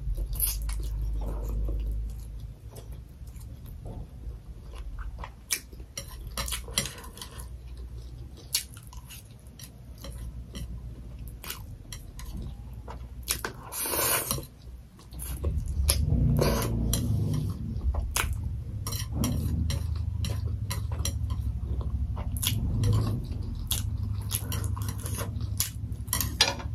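Close-miked eating of fried noodles: chewing and mouth sounds, with many small clicks of chopsticks against a plate and a longer slurp about halfway through.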